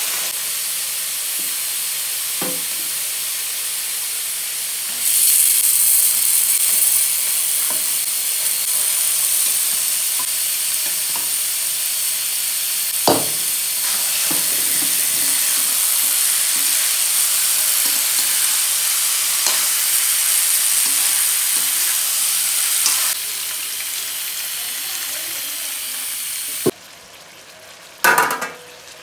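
Pork and potatoes sizzling as they fry in an aluminium wok, stirred and scraped with a spatula. The sizzle gets louder about five seconds in and stops near the end. The spatula knocks against the pan a few times.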